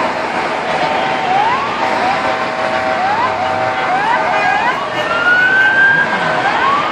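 Emergency vehicle sirens: several rising wails overlapping, one held high and long in the second half, over street traffic noise.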